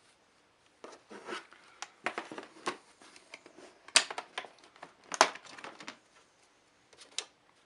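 Irregular plastic clicks, taps and rustling from a laptop's plastic casing being handled and worked open, with two sharper clicks about four and five seconds in.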